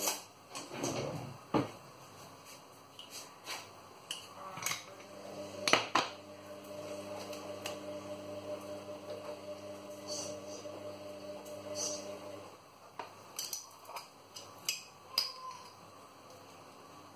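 Kitchen handling sounds: scattered clinks, taps and knocks as a glass jar is set down and a spoon works over a plastic tray of mackerel, the loudest knock about six seconds in. Under them runs a steady hum that stops about three-quarters of the way through.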